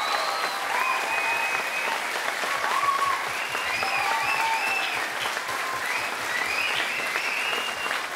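Theatre audience applauding steadily after a musical number, with voices cheering and whooping over the clapping.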